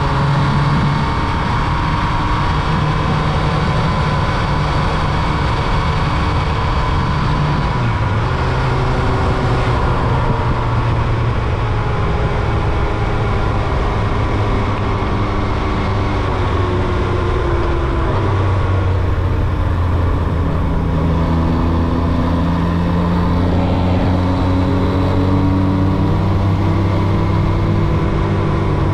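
Yamaha YZF-R1's carbureted inline-four engine running steadily under way, its note drifting slowly up and down in pitch.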